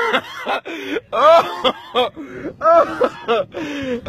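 People laughing and calling out in several short outbursts without clear words.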